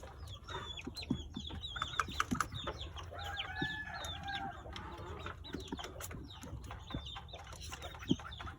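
A flock of chickens clucking and calling, with many short, falling chirps overlapping one another.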